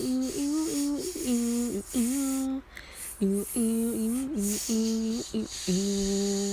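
A woman humming a wordless melody in short stepped notes, then holding one long steady note near the end.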